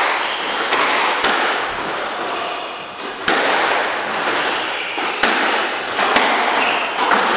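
Squash ball being struck by rackets and hitting the court walls during a rally: a series of sharp cracks and thuds about every one to two seconds.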